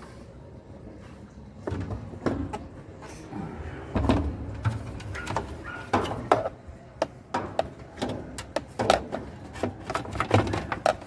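Irregular clicks, knocks and rattles of a washing machine's plastic parts being handled and snapped into place, starting about two seconds in.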